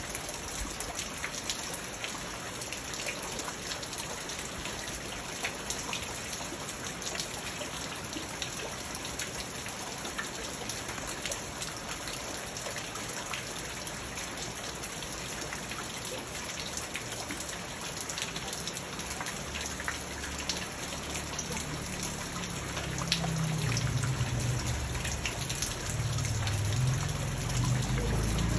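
Steady rain falling on a garden pond, rocks and leaves, with many separate drop ticks and a constant splashing of water at one spot in the pond. A low rumble builds up over the last several seconds.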